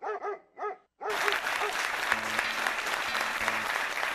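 Crowd applauding steadily, breaking in about a second in after two short spoken syllables: a minute of applause in memory of someone who has died.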